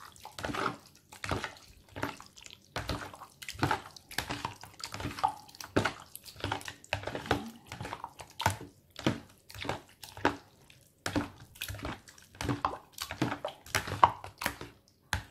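A spoon stirring and folding a thick, creamy buko pandan salad of gelatin cubes, young coconut, cream and condensed milk in a plastic bowl: wet squelching strokes at about two a second, with a short pause about two-thirds of the way through.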